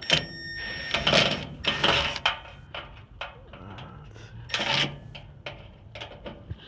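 Sheet-metal front panel of a Kenmore dryer being worked loose and pulled off: a sharp metallic clank that rings briefly at the start, then clattering and scraping of the panel against the cabinet, with another clatter near the end.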